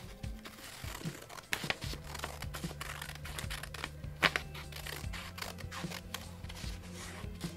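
Scissors snipping through a paper template, with the sheet rustling and crinkling as it is turned in the hands. There are many short snips, the sharpest about four seconds in.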